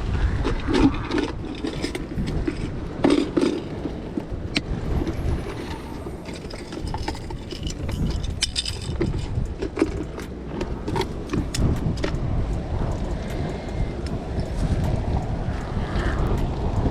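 Wind buffeting the microphone with a steady low rumble, with scattered sharp clicks and light knocks throughout.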